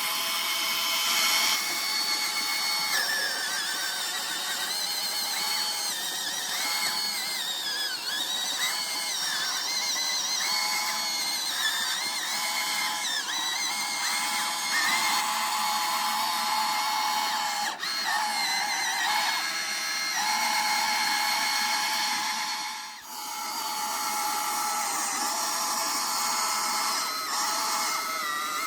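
Small electric motors of toy or RC trucks whining steadily, their pitch wavering up and down, with a brief drop about 23 seconds in.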